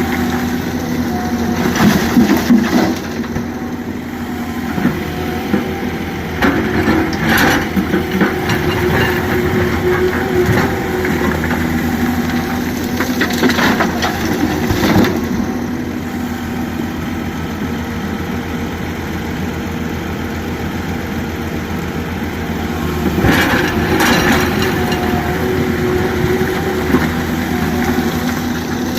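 An excavator engine runs steadily while the machine loads rock into a tipper truck. Heavy crashes and clatter of rock come several times: about two seconds in, near eight seconds, around fourteen to fifteen seconds, and again near twenty-four seconds.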